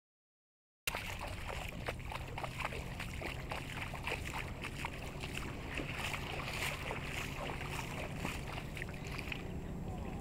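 Water trickling and lapping among shoreline rocks, with many small clicks over a low steady hum. The sound is completely cut out for about the first second.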